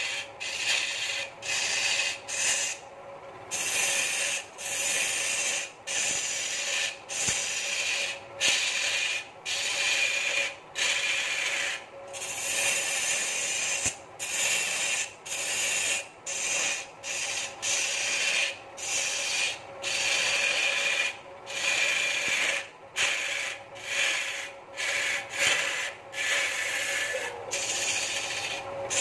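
Wood lathe turning a large wooden stool blank, with a hand-held cutter or abrasive rubbing against the spinning wood in repeated strokes broken by brief gaps about once a second. A steady hum from the lathe's drive runs underneath.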